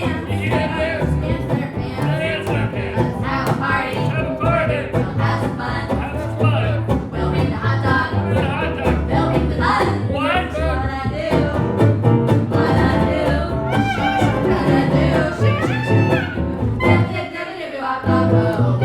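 Live swing-jazz band playing, with a bass line underneath and singing over it.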